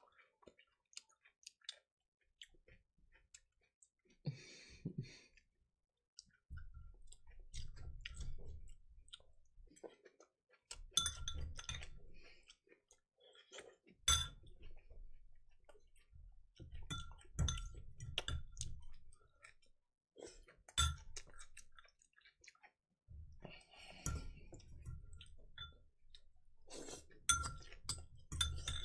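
A person eating salad close to the microphone: a utensil clinking against the dish again and again, between bouts of chewing a few seconds long.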